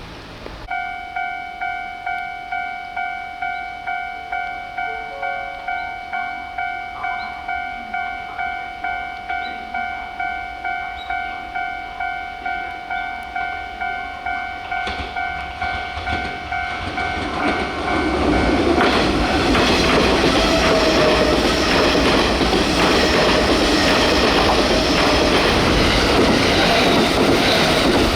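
Japanese railway level-crossing warning bell ringing, an electronic clang about twice a second, then from about 18 seconds in a Kintetsu Nara Line train passing over the crossing, its loud rush of wheel and rail noise drowning the bell.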